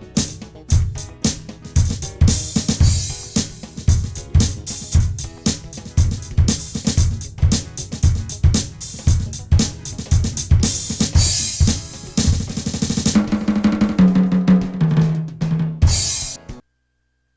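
Drum kit, recorded direct from an electronic kit, playing a steady beat on bass drum, snare, hi-hat and cymbals. About 13 seconds in it turns into a tom fill stepping down in pitch, then cuts off to dead silence near the end.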